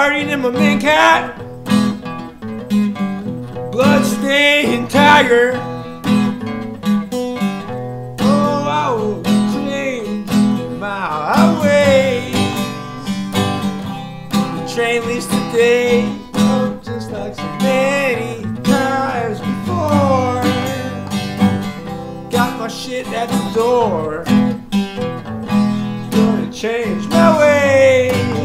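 Acoustic guitar strummed steadily, with a man's voice singing over it in sliding phrases that come every few seconds.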